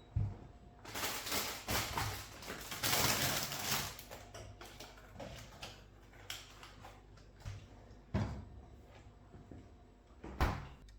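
Handling noises: rustling and scraping, densest and loudest in the first few seconds, with a few separate knocks later on.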